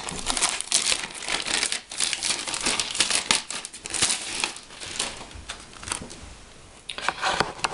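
Clear cellophane sleeve crinkling as a paper cross-stitch chart is slid out of it: a dense run of crackles that thins out near the end.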